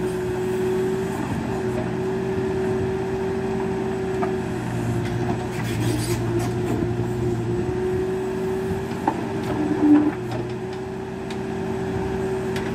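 Case backhoe loader's diesel engine running steadily with a steady whine, while the backhoe bucket scrapes through soil and rock, with scattered knocks of stones and one brief louder sound about ten seconds in.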